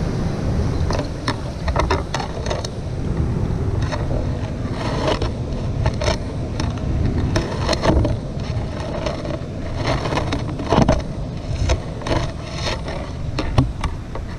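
Poke pole knocking and scraping irregularly against rock as it is worked into a tide-pool crevice, over a steady low rumble on the microphone.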